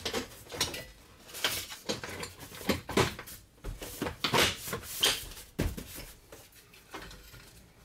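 Plastic steering column cover of a Ford E-350 van being pushed and snapped into place around the column: a series of irregular plastic knocks and clicks with some rubbing and rustling between them.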